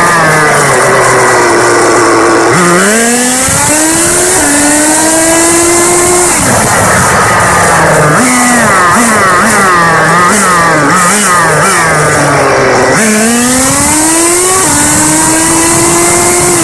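Nitro RC car's small two-stroke glow engine revving hard. Its pitch climbs in long runs as the car accelerates, and in the middle the throttle is blipped rapidly up and down, about twice a second. A steady high hiss runs under the engine.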